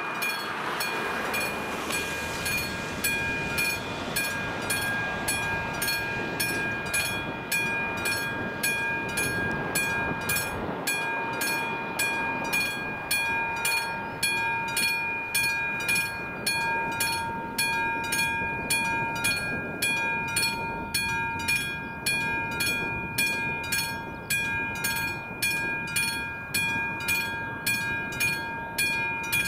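Classic mechanical level-crossing warning bell on an AŽD 71 signal, ringing with rapid, evenly spaced strokes, each leaving a clear ringing tone. It sounds while the red lights flash, warning that a train is approaching and the crossing is closed.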